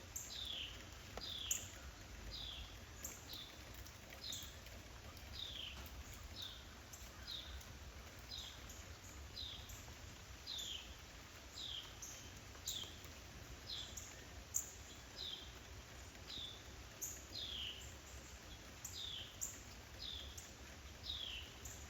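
A small songbird repeating a short, high, falling call about once a second, over a faint steady background hiss.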